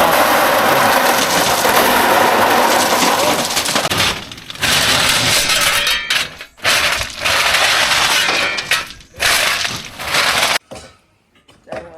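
A load of stones being unloaded, rock clattering and crashing as it pours out: one long continuous rush, then several shorter bursts after about four seconds, stopping shortly before the end.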